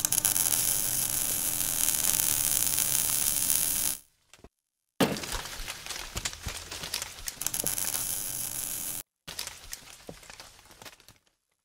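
Welding arc crackling and sizzling over a faint steady hum, in three runs broken by short silences: the first about four seconds long, the second starting abruptly about five seconds in, and a shorter last one that fades out.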